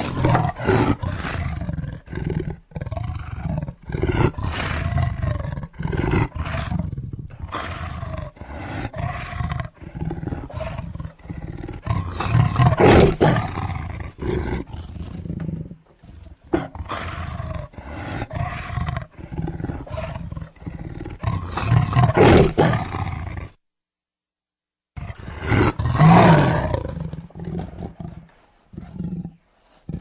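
Tiger roaring over and over: a run of deep, rough roars with short breaks between them. The loudest come about halfway through and near the end, with a brief silence just before the last big roar.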